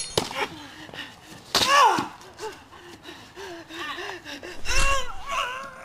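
A person crying out and groaning without words: a loud cry that rises and falls about one and a half seconds in, a long wavering moan, then another loud cry near the end.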